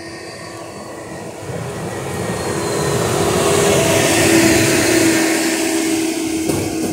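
Yellow maintenance-of-way track machine running along the rails and passing close by: engine noise and steel wheels on rail, with a steady hum underneath, growing louder to a peak about four to five seconds in and then easing off as it goes past.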